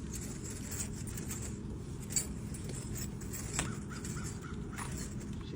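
Crows cawing, a short run of calls about three and a half seconds in, over a steady low background rumble with a few sharp clicks.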